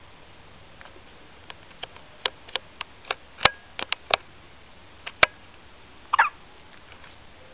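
A newborn baby during a fit of hiccups: about a dozen small sharp clicks and catches, quick and irregular, over a few seconds, then one short squeak about six seconds in.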